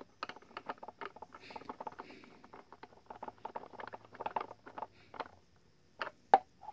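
Screwdriver turning a screw into the hard plastic housing of an animatronic Santa, with the plastic shell being handled: a quick run of small irregular clicks and scrapes, and one sharper click near the end.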